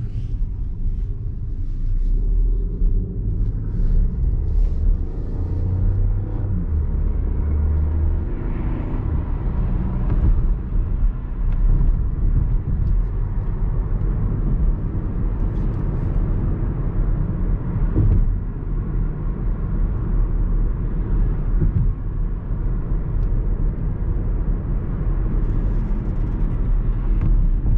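BMW 118i's 1.5-litre turbocharged three-cylinder engine and tyre rumble, heard from inside the cabin while driving through town; a steady low rumble.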